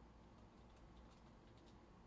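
Near silence: a low room hum with faint clicks of computer keyboard typing, bunched in the middle.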